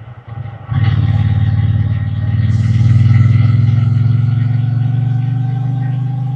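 Triumph Bonneville T120's 1200 cc parallel-twin engine and exhaust, heard from the rider's seat. It runs low and quiet at first, then the throttle opens just under a second in. From there the exhaust note stays loud and steady as the bike pulls.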